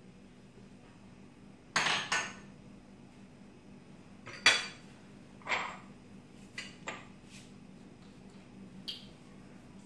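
Small glass bowls and kitchen utensils clinking and knocking as they are handled and set down on a countertop: several separate sharp knocks, the loudest about four and a half seconds in.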